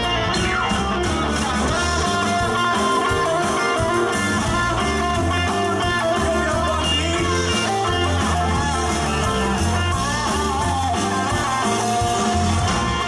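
Live band playing amplified music: electric guitar prominent over a stepping bass guitar line and drum kit.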